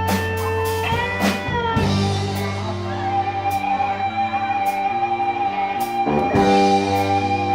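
Live rock band playing: a lead guitar holds long notes and bends a few of them, over steady bass and drums with regular cymbal strikes.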